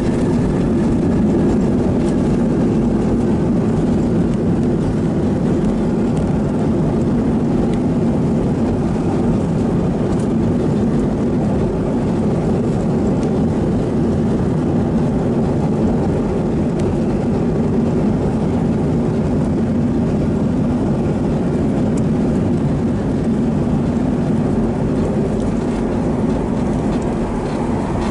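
Boeing 737-800 landing roll heard from inside the cabin over the wing: a steady, loud roar of the jet engines and the wheels rumbling on the runway, easing slightly near the end as the aircraft slows.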